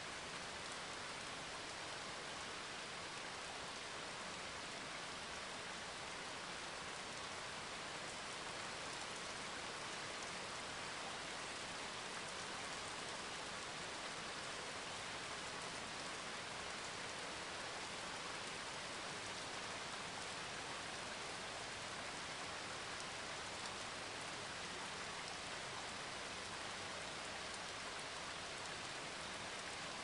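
Steady rain falling on a surface: an even, unbroken hiss.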